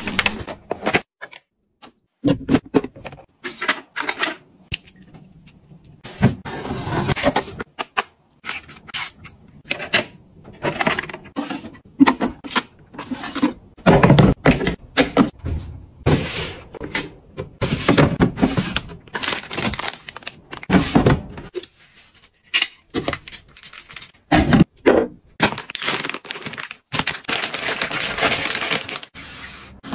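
Close-up packaging handling sounds: plastic film being peeled and crinkled, wrappers rustling, and short taps and clicks as items are handled and put away, in an irregular run of bursts with a longer crinkly stretch near the end.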